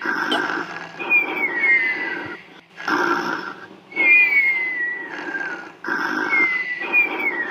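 Snoring in a steady run of about five breaths, each a rasping snore, many with a thin nasal whistle that slides down in pitch.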